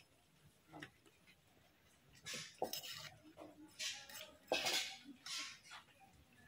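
Metal cookware and utensils clinking and scraping in a handful of short strokes, the loudest of them in the middle.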